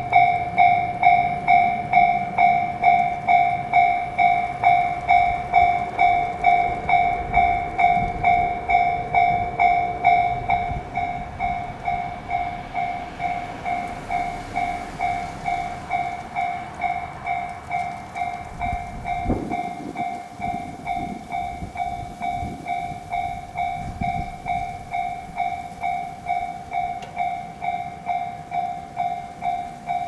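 Japanese electronic level-crossing warning bell ringing, a two-tone ding repeating at an even beat. It gets somewhat quieter after about ten seconds.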